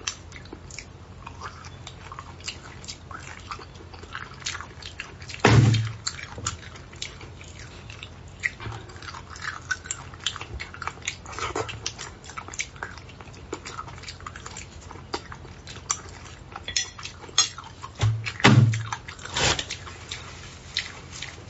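Close-miked mouth sounds of a person eating braised beef bone marrow: a run of small chewing and lip-smacking clicks, with louder mouth sounds about five seconds in and twice near the end.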